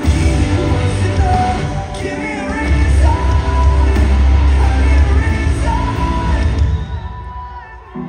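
Live rock band playing loud, with heavy drums and bass under sung and yelled vocals; the music drops away about seven seconds in.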